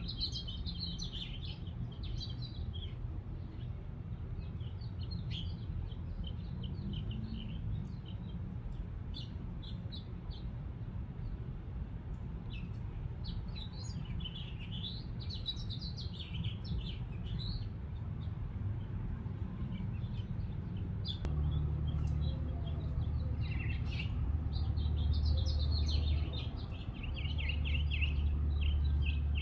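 Birds chirping and twittering in quick bursts. Under them runs a low steady rumble that grows louder about two-thirds of the way through and briefly drops out near the end.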